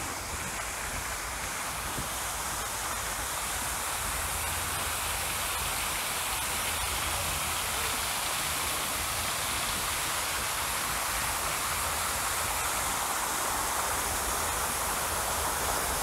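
Steady rush of water falling from a tiered garden fountain, growing gradually louder.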